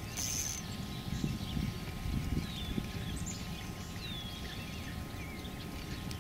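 Birds chirping now and then over a low rumble of wind and handling noise, with a brief high hiss in the first half second.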